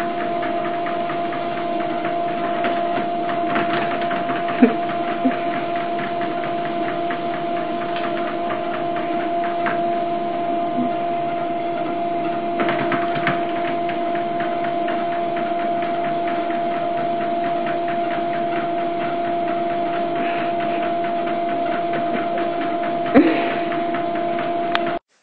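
Steady machine hum: a constant pitched drone with a hiss over it, broken by a few brief knocks, the loudest near the end.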